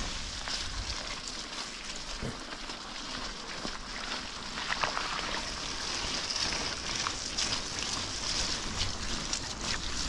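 Knobby bicycle tyres rolling through wet mud on a dirt road: a steady hiss with wind on the microphone and a few faint ticks.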